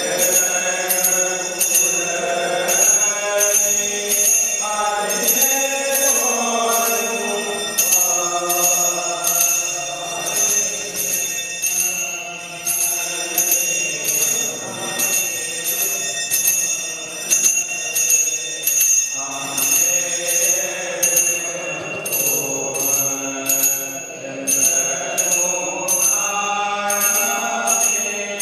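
Voices chanting hymns in a melodic line, with a bell ringing steadily at about two strokes a second.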